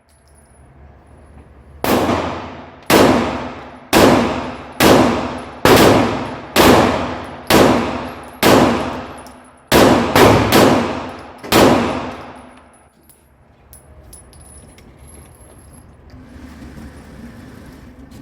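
Glock 17 9mm pistol fired twelve times at a steady pace of about one shot a second, with three quicker shots near the end. Each shot has a long ringing tail.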